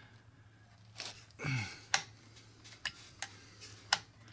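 Irregular sharp clicks and knocks from the mechanism of a vintage Pfaff 463 sewing machine as it is worked back and forth by hand, stiff with old varnished oil and just starting to move. There is a short falling-pitch sound about a second and a half in, over a steady low hum.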